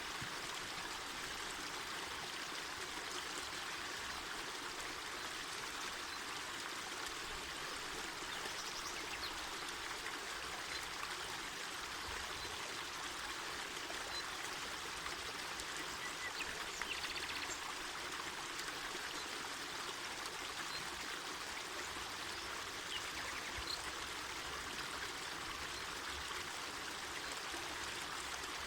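A mountain forest river flowing steadily: an even, continuous rush of water.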